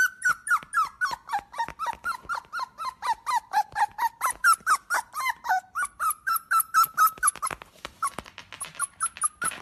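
Newborn Rottweiler puppies squeaking, a rapid string of short high squeals about five a second that thins out near the end.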